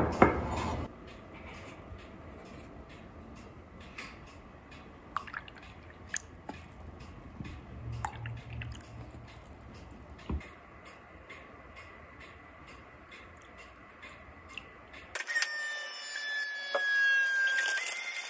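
A ceramic coffee mug knocks down onto a stone countertop, then a long quiet stretch with a few faint clicks. About fifteen seconds in, plastic crinkles and rustles as used coffee pods are pulled apart, over a falling whine.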